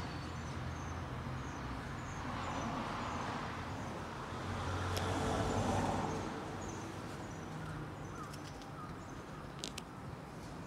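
Street ambience: a low, steady traffic rumble that swells as a vehicle passes about halfway through, with a few faint high chirps and one or two small clicks.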